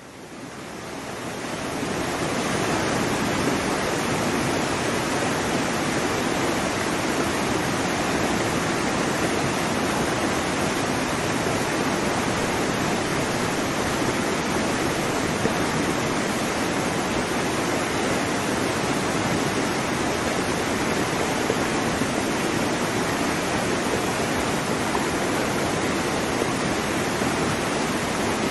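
Steady, even rush of water with no distinct wave surges, fading in over the first couple of seconds and then holding level.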